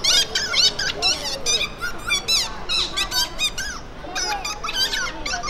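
Rapid, high-pitched squeaky chirps and squeals from a street clown's comic noise-making, coming in quick bursts of sliding squeaks with short breaks.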